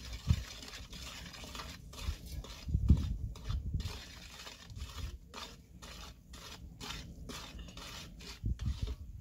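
A ladle stirring and scraping in a metal cooking pot, a run of short scrapes, with a few dull thumps, the loudest about three seconds in.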